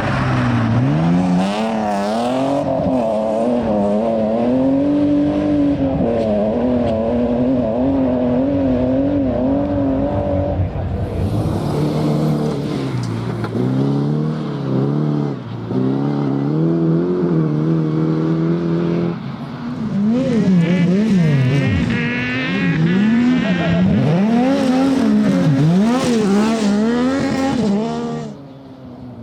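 Rally car engines revving hard on a stage, the pitch climbing and dropping again and again with throttle lifts and gear changes, with some tyre squeal. The sound changes abruptly twice, and falls away near the end.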